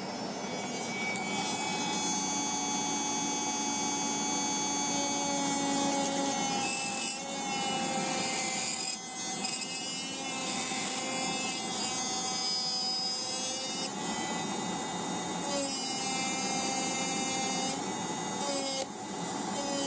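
Electric nail drill running, its bit grinding down the length of an artificial gel nail. A steady motor whine with a rasping grind, the pitch wavering as the bit bears on the nail. It eases off briefly a few times as the bit lifts.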